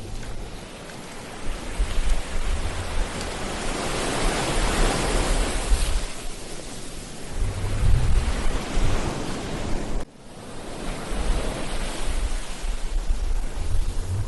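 Ocean surf breaking and washing on a beach, the noise swelling into a crest about four to six seconds in and again near eight seconds, with low wind rumble on the microphone. The sound drops out abruptly for a moment about ten seconds in and builds back up.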